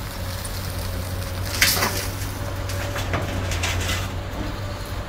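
Komatsu PC200 hydraulic excavator's diesel engine running steadily under a thin steady whine, while the bucket works the dirt pile: a sudden loud scrape and crunch about a second and a half in, then soil and stones rattling and clattering.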